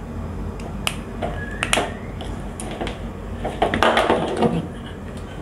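Small scattered clicks and taps of a screwdriver working the terminal screw of a plastic push-button switch, with a denser, louder run of clicks and rattling about four seconds in as the switch and wire are handled.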